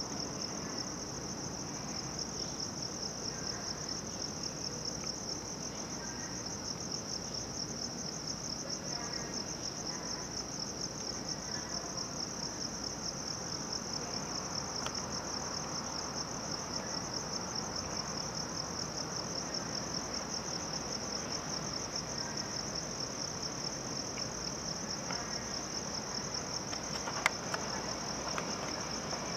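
Insects trilling without a break, one high, rapidly pulsing buzz over a low background hum, with a single sharp click about 27 seconds in.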